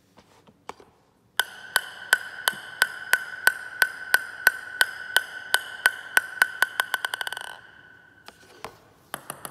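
Plastic table tennis ball bounced repeatedly on the bare face of a Xiom Stradivarius blade (5 wood plies plus 2 aramid-carbon layers), about three ringing pings a second. Near the end the bounces quicken and close up as the ball settles on the blade, and shortly after a new run of bounces starts.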